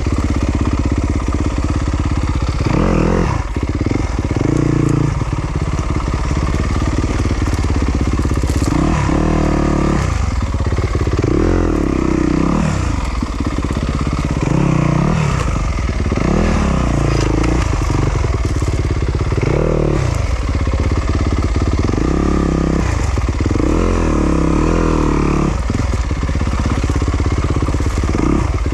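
Yamaha YZ250FX's 250 cc four-stroke single-cylinder engine being ridden hard, its revs rising and falling every couple of seconds as the throttle is worked on and off.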